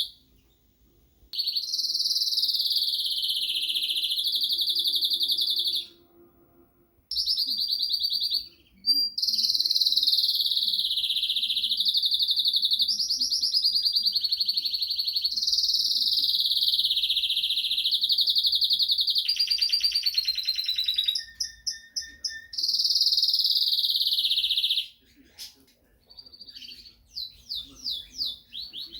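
Portuguese Harlequin canary (Arlequim Português) singing long, fast-trilled song phrases, with brief pauses between them. Near the end the song breaks into a run of separate short chirps.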